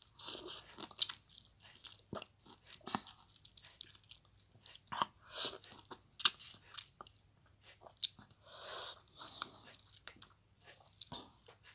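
A person biting and chewing a lemon wedge close to the microphone: irregular mouth smacks and short sharp clicks.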